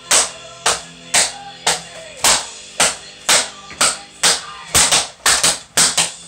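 Cardboard paper towel rolls struck as percussion in a steady beat of about two sharp hits a second, with a quick run of closer hits near the end. Steady pitched tones hold underneath the hits.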